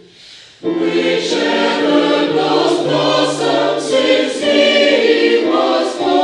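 Choir singing together in several parts, entering all at once just over half a second in and holding long sung notes.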